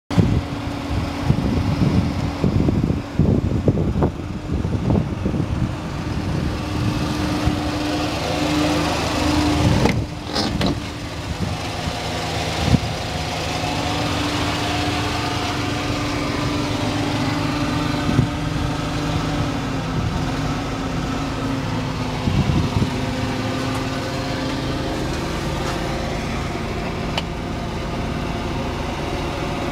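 Honda Acty mini truck's small three-cylinder engine idling steadily, with some irregular knocks and bumps over the first dozen seconds.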